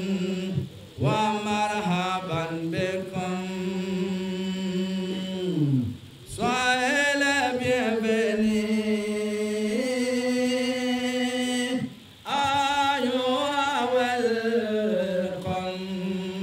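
A solo voice chanting an unaccompanied welcome song in long, held phrases, the pitch stepping between sustained notes and gliding down at phrase ends. There are three phrases, with short breaths between them about half a second, six seconds and twelve seconds in.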